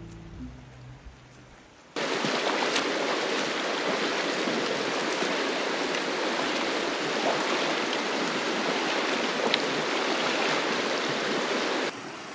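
Steady rush of a shallow mountain creek flowing over stones. It starts abruptly about two seconds in, after a brief tail of music, and cuts off just before the end.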